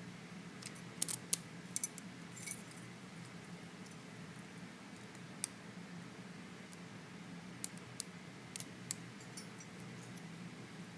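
Small sharp metallic clicks and clinks of a key and an Abus 72/40 aluminium padlock being handled. There is a cluster in the first three seconds and a few scattered ones later, over a faint steady hum.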